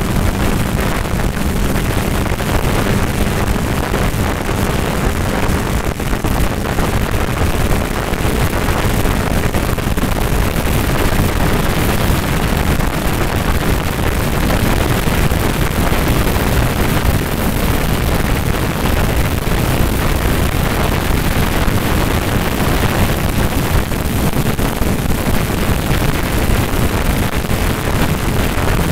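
Heavy wind rush on the microphone of a sport motorcycle at highway speed, over the bike's engine running steadily. A steady engine hum underneath fades out about six seconds in.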